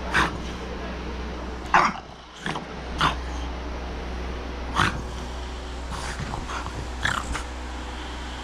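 French bulldog giving short, sharp barks in irregular bursts, bunching closer together near the end: an angry dog throwing a fit.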